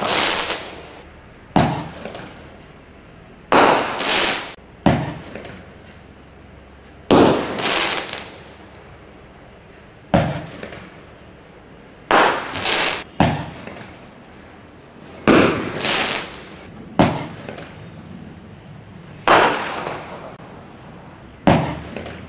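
Standard Fireworks Star Fire roman candle firing shot after shot, each a sharp pop followed by a fading hiss. The shots come roughly every one to two seconds, some in quick pairs.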